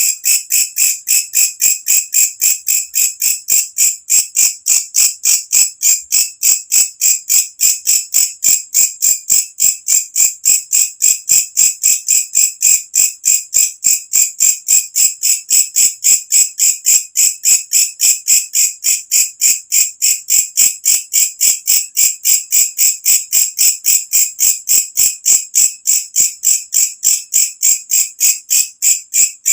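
Walang kecek (belalang kecek) insect calling in a loud, shrill, unbroken train of rapid, evenly spaced pulses, about four to five a second.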